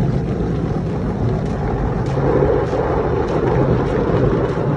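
Automatic car wash going over the car, heard from inside the cabin: cloth brushes rubbing across the windshield and water spraying and sheeting over the glass and body, in a loud, steady, muffled rumble.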